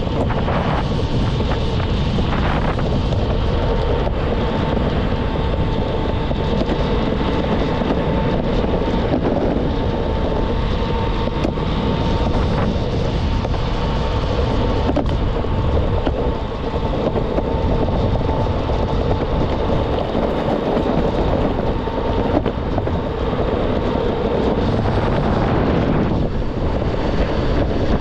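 Electric skateboard ride: steady wind rushing over the microphone mixed with low rolling road noise, with a thin steady whine through most of it.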